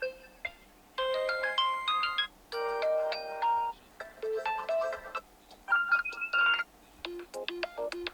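Oppo Find X3 Pro default ringtones playing: short melodic phrases of chiming electronic notes, about six in a row, each roughly a second long with brief gaps between.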